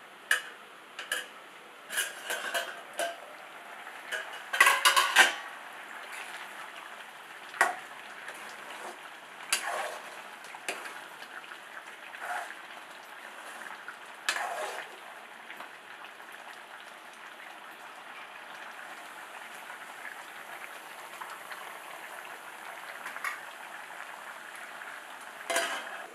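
Steel lid and ladle clinking and clattering against a steel cooking pot: the lid comes off, the thick chicken gravy is stirred, and the lid goes back on near the end. Under it runs a faint steady hiss of the gravy cooking.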